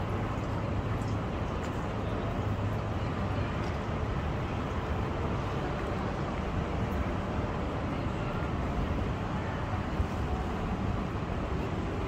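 Steady outdoor background rumble with a low hum and no distinct events.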